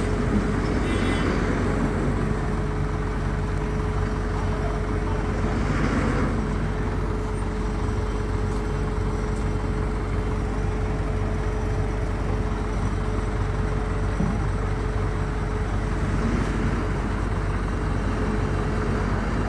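Diesel engines of mobile cranes running in a steady low drone during a tandem lift, with a steady whine over them that stops near the end.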